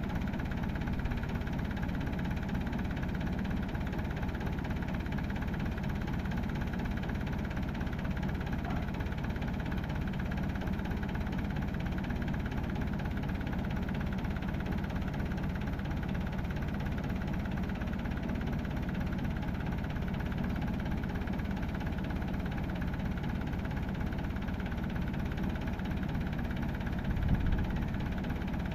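Massey Ferguson tractor engine idling steadily, with a brief louder moment near the end.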